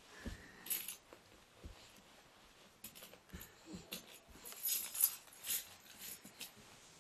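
A bunch of keys jingling and clinking as a baby's hand paws at them on the carpet, in several short bursts, the loudest cluster about five seconds in.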